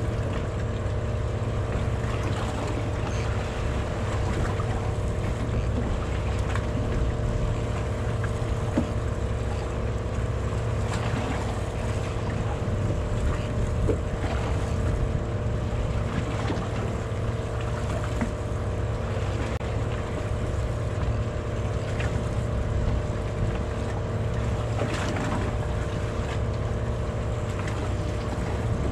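Fishing boat's engine running steadily, a low hum with a steady higher whine over it, with a few faint knocks.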